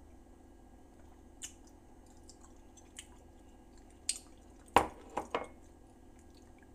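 A few faint clicks while soup is sipped from a ceramic mug, then the mug is set down with a knock about five seconds in, followed by two lighter knocks in quick succession.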